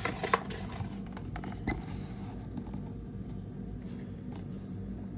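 Trading cards being handled: a few light clicks and scrapes of card against card in the first two seconds, over a steady low hum.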